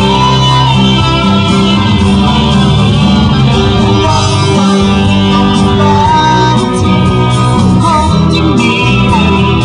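A rock band playing live and loud, with guitar and a singing voice carrying the melody.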